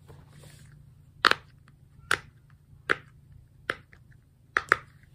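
Silicone watermelon pop-it fidget toy having its bubbles pressed: about six single pops roughly a second apart, the last two in quick succession. Not very good pops.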